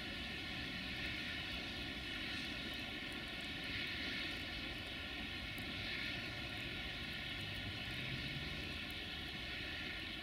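Freight train's wagons rolling away over the rails: a steady rumble and hiss with slight swells.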